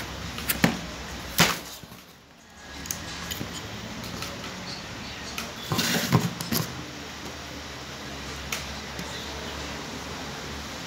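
Sharp clicks and knocks from a car window regulator's steel cable and its sheath being handled and set down on the bench: a few near the start, a short rattling cluster about six seconds in, and one more later, over a steady low hum.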